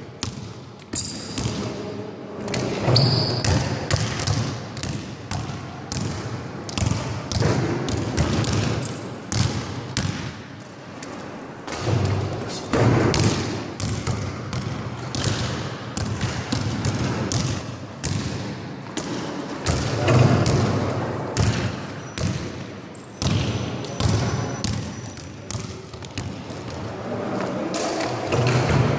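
A basketball dribbled repeatedly on an indoor court floor, many sharp irregular bounces with an echo from the large sports hall.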